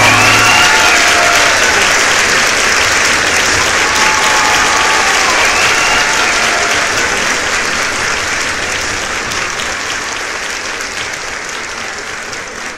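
A rock band's last held note stops just after the start, and a live audience applauds and cheers, with a couple of shouts. The applause fades out slowly over the last few seconds.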